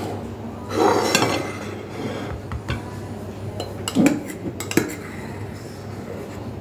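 Clinks and scrapes of utensils against dishes: a scraping stretch about a second in, then scattered sharp knocks, the loudest near four and five seconds.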